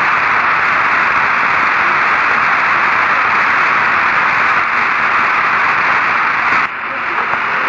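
Steady radio static hiss on an open communications channel with no voice on it, dropping briefly about seven seconds in before carrying on.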